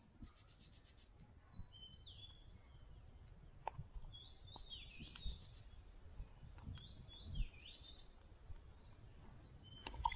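Forest songbirds singing: phrases of short whistled notes that slur up and down, with fast high trills, repeated three or four times.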